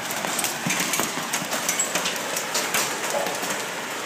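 Hail and rain falling hard: a steady hiss with many irregular, sharp clicks of hailstones striking.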